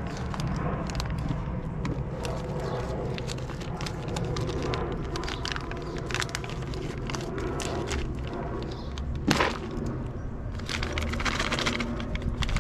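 Packaging of nails being handled, crackling with scattered clicks, a sharper noise about nine seconds in and a busier run of clicks near the end, over a steady low hum.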